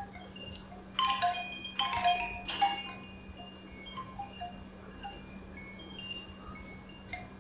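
Wind chimes tinkling: three louder clusters of ringing notes in the first three seconds, then scattered single notes.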